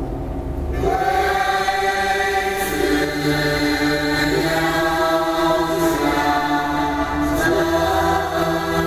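Slow choral chanting with long held notes, entering about a second in over a low rumble, as music for a Buddhist ceremonial dance.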